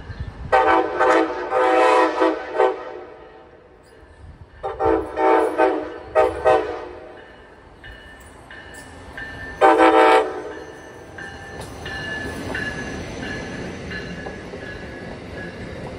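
Amtrak ACS-64 electric locomotive sounding its horn in three blasts, the second broken in two and the last short. The train then passes close by with a growing rush of wheel and rail noise and a steady high whine.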